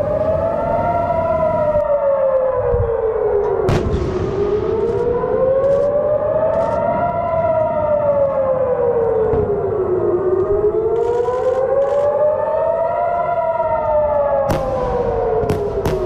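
Civil defense air-raid siren wailing, its pitch rising and falling slowly, about one full cycle every six seconds. A few short sharp cracks sound over it, a cluster about four to six seconds in and more near the end.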